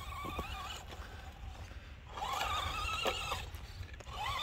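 Carson Mega Duster electric RC monster truck's motor whining, rising and falling in pitch as the throttle is worked. It is strongest from about two seconds in, with a shorter rise near the end.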